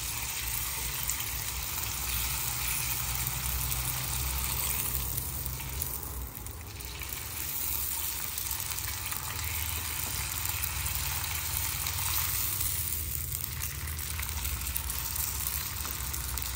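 Hot oil sizzling steadily as thin soybean sheets fry in a shallow aluminium pan and are turned with chopsticks. The sizzle eases briefly about six seconds in.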